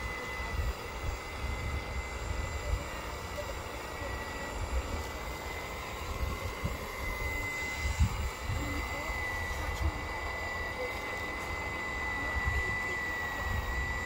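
Remote-controlled model Cat excavator running as it swings and digs: its motor gives a steady high-pitched whine over an uneven low rumble.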